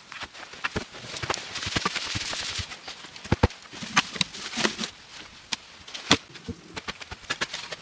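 Irregular knocks and taps, with a stretch of scraping hiss from about one to three seconds in. Two sharper strikes stand out, around three and a half and six seconds in.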